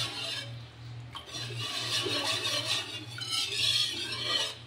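Wire whisk stirring a thin milk and coconut-milk mixture in a large aluminium pan: uneven swishing and sloshing of the liquid, with the whisk rubbing and scraping the metal.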